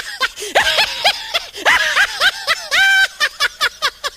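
Cartoon lion laughing sound effect: a high-pitched voice laughing in quick chuckles that rise and fall in pitch.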